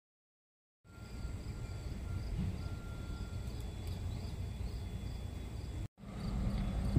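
Low rumble of an approaching diesel locomotive, with insects chirping steadily above it. It starts about a second in and drops out briefly near the end.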